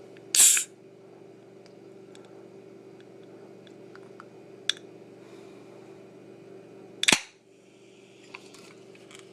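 Pepsi can being cracked open slowly and carefully: a loud sharp crack about half a second in, a small click near the middle, and a second sharp crack about seven seconds in, with faint ticks between.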